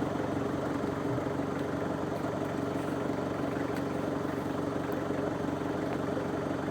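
A motor vehicle's engine running steadily at an even, unchanging speed.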